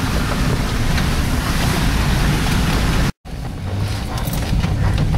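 Truck driving along a rough dirt trail, heard from inside the cab: a steady engine and road rumble under a rushing wind-like noise. The sound drops out for an instant about three seconds in, then carries on with scattered knocks and rattles from the bumpy ride.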